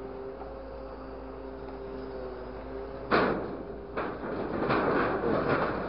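Truck-mounted hydraulic grapple working scrap: a steady hydraulic hum, then about three seconds in a loud bang as the claw hits corrugated metal sheeting, another knock a second later, and rattling, crunching scrap as the claw closes on the sheets.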